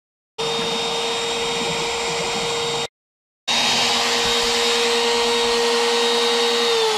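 A NextWave Piranha CNC router's spindle motor runs at a steady high whine while its bit cuts PVC trim board, broken twice by brief dead silence. Near the end the router is switched off and the whine starts falling in pitch as it spins down.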